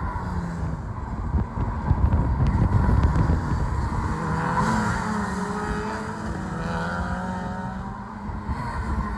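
Single-seater racing car engine heard from trackside, its note climbing under acceleration about halfway through and then fading as it goes by, over a low wind rumble on the microphone.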